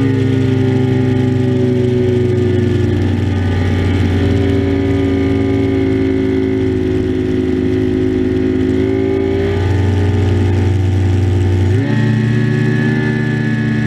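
Mercury 150 outboard motor running steadily at speed under way. Its note rises a little about nine seconds in, then shifts abruptly near the twelve-second mark before settling again.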